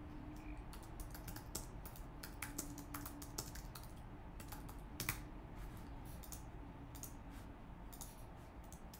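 Typing on a computer keyboard: a run of irregular key clicks, with one louder click about five seconds in.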